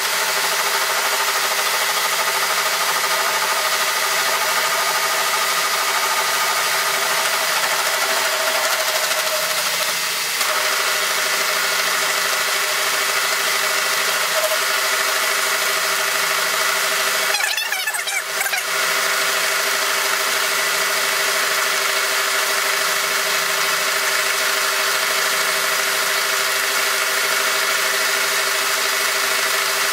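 Kearney & Trecker 2K milling machine running steadily, its roughing shell mill taking a heavy roughing cut in a steel bar, with a steady machine hum and tones over the cutting noise. The sound briefly wavers a little past halfway.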